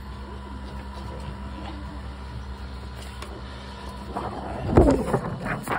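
X-ray film sheets being handled on a lightbox viewer, one taken down and another put up. The stiff film rustles and knocks, loudest about four to five seconds in, over a steady low hum.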